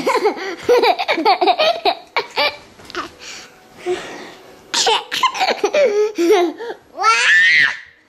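A toddler laughing and giggling in bursts right at the microphone, ending in a high-pitched squeal near the end.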